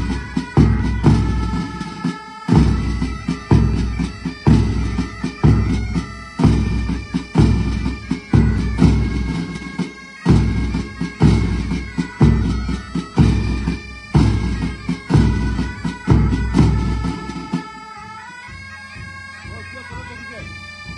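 Pipe band playing: bagpipes sound a melody over their drone, with a heavy bass drum beating about once a second. The drum stops about three-quarters of the way through, leaving the pipes playing alone and quieter.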